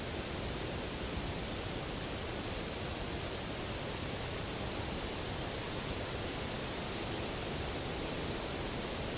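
Steady background hiss of a field recording, even throughout, with no knocks or calls standing out.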